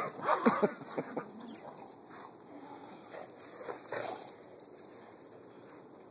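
A dog vocalizing in short bursts while it plays. The sounds are loudest and closest together in the first second or so, and a few fainter ones come about four seconds in.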